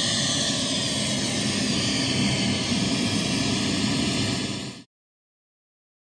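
Pink noise test signal played through a Cicada Audio CHX 8-inch coaxial horn speaker, its tweeter turned down by a 3 dB attenuator: a steady, even hiss that cuts off abruptly about five seconds in.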